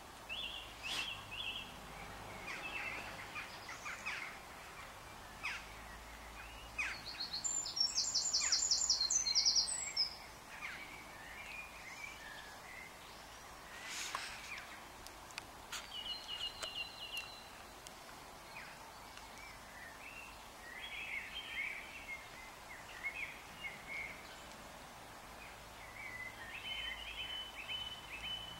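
Songbirds singing, many short phrases overlapping, with one loud, fast trill about a third of the way in. A few short, sharp clicks are scattered through it.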